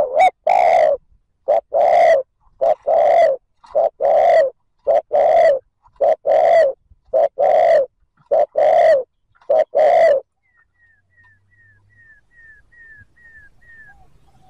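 Spotted dove giving a fast, loud run of coos, about one a second with short clipped notes between, the rapid 'thúc gù' cooing that decoy keepers use to provoke wild males. The cooing stops about ten seconds in, and a faint string of short, high, falling chirps follows.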